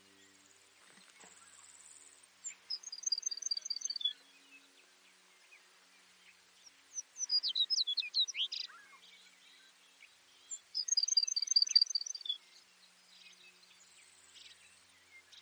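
Baird's sparrow singing: three songs about four seconds apart, each a quick series of high notes. Faint high buzzing is heard between the songs.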